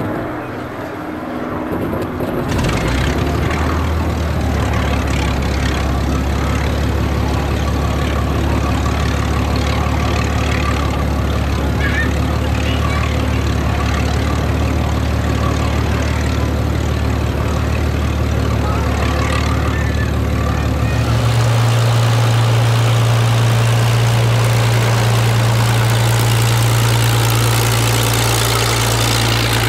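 Hawker Hurricane's Rolls-Royce Merlin V12 engine coming up to a steady idle about two and a half seconds in and running there with a constant low drone. About twenty seconds in its note steps up to a higher, louder pitch.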